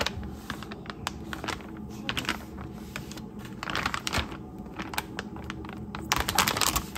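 Kitchen handling sounds: irregular light clicks and taps of utensils and dishes, with brief rustling or scraping about four seconds in and again near the end.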